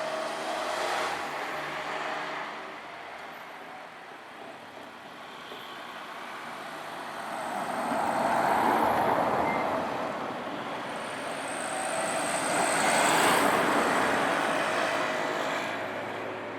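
Road vehicles driving across a railway level crossing, one after another: one passes about halfway through and another a few seconds later. A low engine hum is heard in the first couple of seconds.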